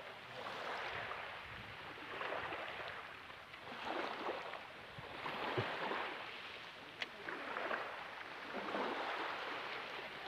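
Small waves lapping and washing up onto a sandy, pebbly shore, each wash swelling and fading about every one and a half seconds. A single sharp click about two-thirds of the way through.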